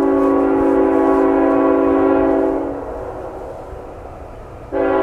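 Locomotive multi-note air horn sounding a long blast of about two and a half seconds, then a second blast starting near the end.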